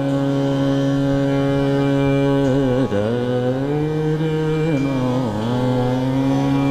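Male classical singer holding long sustained notes in a wordless khayal-style introduction, with two sliding ornaments between notes, accompanied by harmonium.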